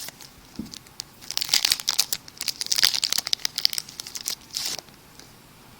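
A baseball card pack's wrapper being torn open and crinkled: a dense crackle of plastic from about a second in until near the end.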